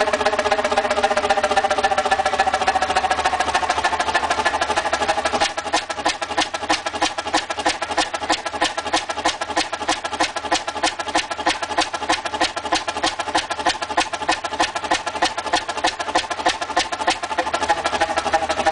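Large old Fairbanks Morse diesel engine running. About five seconds in it settles into slow, even beats, about three a second, over a steady whine.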